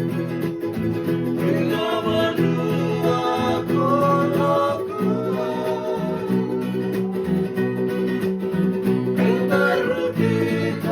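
Fijian sigidrigi string-band music: strummed guitars and ukulele with group singing.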